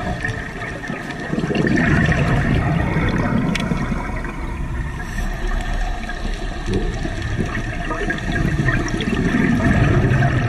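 Underwater rushing and gurgling of a scuba diver's exhaled bubbles. It swells twice, a few seconds apart, once early and again near the end.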